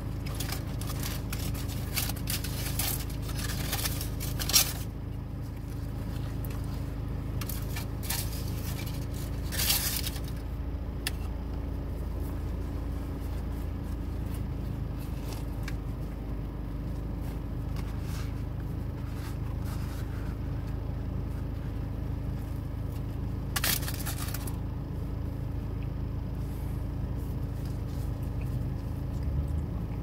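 Food packaging crinkling and rustling in bursts as a meal is unwrapped and handled, with a sharp click about four and a half seconds in. A steady low hum fills the car cabin underneath.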